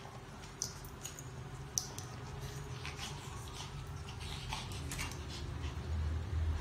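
An Ibizan Hound and a Shih Tzu play-wrestling: soft mouthing and scuffling with scattered sharp clicks, and a low rumble building near the end.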